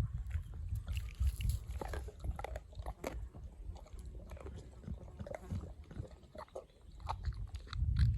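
Cane Corso chewing and crunching its dinner: irregular wet crunches and clicks of teeth on food, with a heavier low rumble near the start and again near the end.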